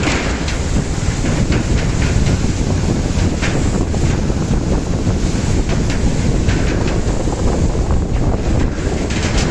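Heavy wind noise on the microphone of a moving 125cc motorcycle: a steady low rumble with a few short rattles or knocks.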